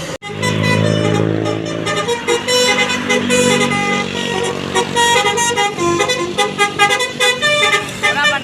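Telolet basuri melodic bus horn playing a quick tune of short, bright notes, starting suddenly. A low steady hum sounds under the first two seconds.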